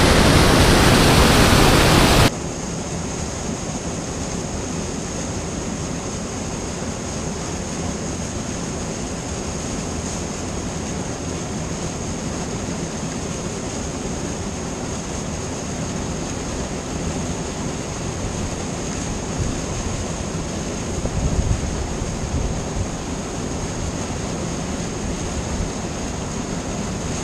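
Spillway outflow rushing and churning into the river, a steady full rush of white water; it is much louder for the first two seconds, then settles to an even level.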